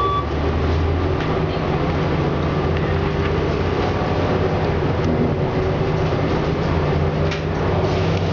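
City transit bus driving, its engine and road noise heard from inside the passenger cabin as a steady low drone.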